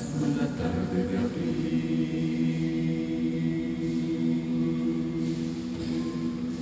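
Choir singing a cappella, a few shifting notes giving way to one long held chord.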